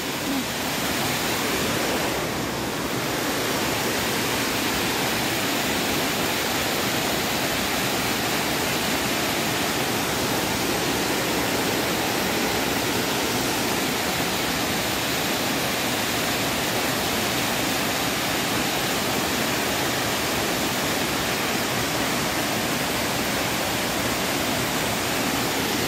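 Waterfall cascading down rock faces into a pool: a steady, even rush of water.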